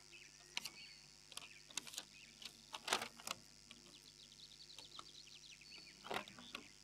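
Faint birds chirping, with a quick run of short twitters in the middle. Scattered soft clicks and rustles are heard throughout.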